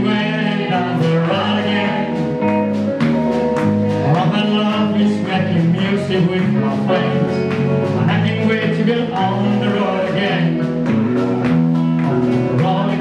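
Live country band playing: singing over strummed acoustic guitar, drums and a low bass line.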